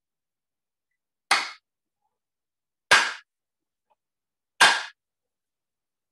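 Wooden clappers struck together three times, evenly spaced about a second and a half apart, each a sharp crack that dies away quickly.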